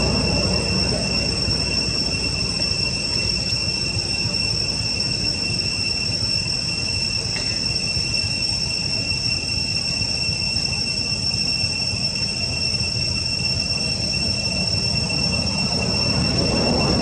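Cicadas droning in one steady, unbroken high-pitched whine, over a constant low rumble.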